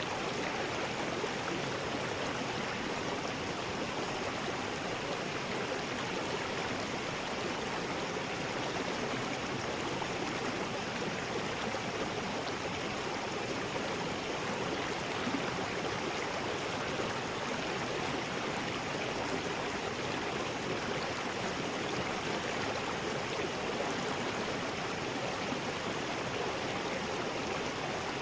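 River rapids: water rushing steadily over rocks, a continuous even rush with no change in level.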